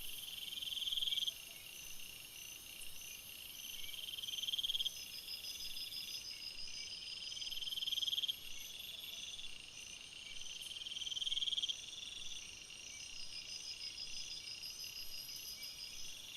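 Insects calling in a steady chorus. A high trill swells in loudness and cuts off sharply about every three and a half seconds, over other faster, steady pulsing calls.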